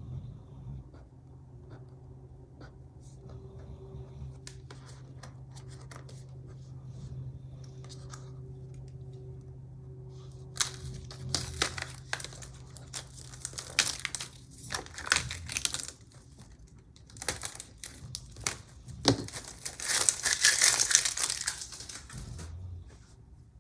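Paper sticker sheets being handled and peeled: short rustling, crinkling and peeling sounds from about halfway in, with the longest and loudest crinkle near the end. A faint low hum lies under the first half.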